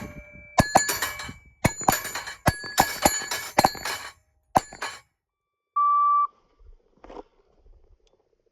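A fast string of about ten pistol shots over the first four and a half seconds, with steel targets ringing after the hits. About six seconds in comes a short steady beep, then a faint click.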